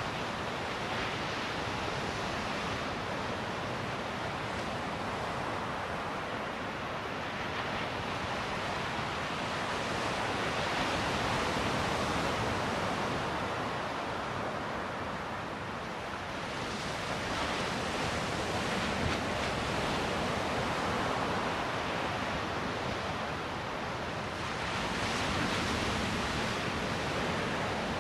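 Surf breaking on a beach: a continuous wash of waves that swells and falls back every several seconds as each wave breaks and runs up the shore.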